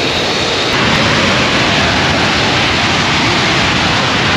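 Fighter jet engines running on the runway: a loud, steady rush of jet noise that gets louder about a second in.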